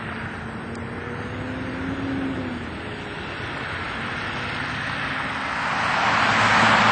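Twin-engine jet airliner at takeoff power, a steady rushing jet roar with a faint low hum, as it rotates and lifts off. The noise swells louder and brighter about six seconds in.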